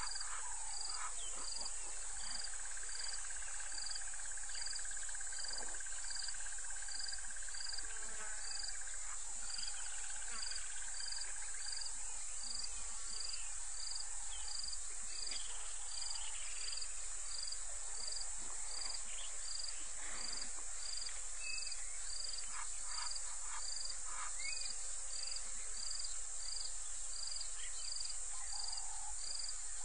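Bush ambience: a steady high insect hiss with a short high chirp repeating evenly a little more than once a second, and scattered brief bird calls.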